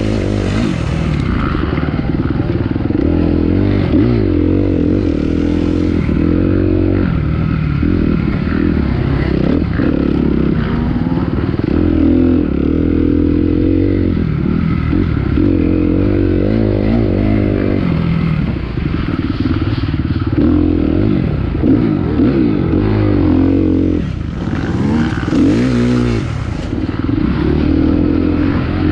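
Dirt bike engine revving hard and continuously, its pitch rising and falling over and over as the throttle is opened and closed. There are brief bursts of hiss near the start and again near the end.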